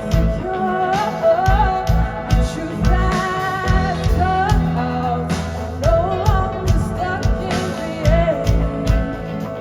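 Live rock band playing an instrumental passage: drum kit hits, bass guitar and electric guitar, with a lead melody that bends and wavers in pitch over the beat.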